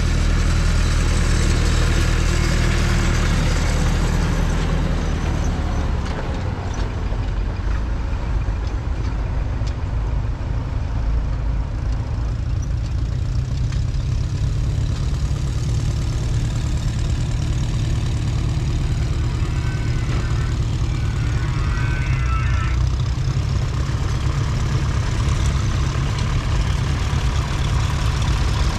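Vintage farm tractor engines running as tractors drive along a road. The engine sound is loudest for the first several seconds, as a tractor towing a trailer pulls away. After that, engines keep up a steady lower sound while more tractors approach.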